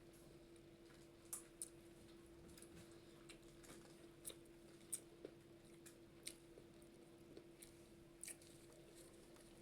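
Faint close-up chewing and mouth sounds of a person eating, with scattered soft wet clicks and smacks over a steady low hum.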